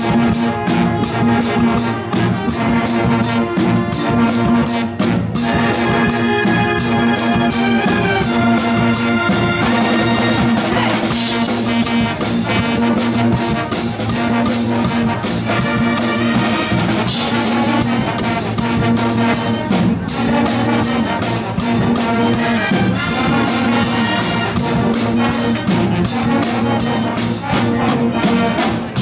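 Band playing a tune: saxophones, clarinets, trumpets and sousaphones over a drum kit and cymbals keeping a steady beat.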